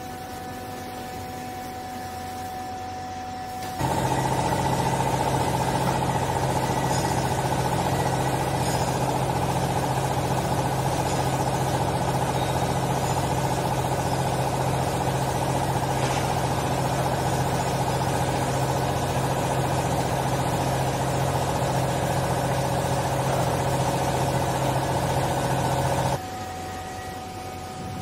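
Vertical hydraulic baler's electric motor and hydraulic pump running through a pressing stroke on a bale of used clothing, as a steady hum. It switches on abruptly about four seconds in and cuts off abruptly shortly before the end.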